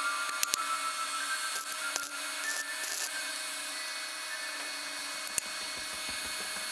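Electric arc welding of a steel rod onto a steel pipe: a steady crackling hiss with scattered sharp clicks.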